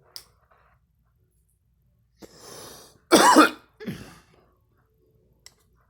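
A girl coughing: a rough breath at about two seconds, then one loud cough followed by a shorter, quieter one.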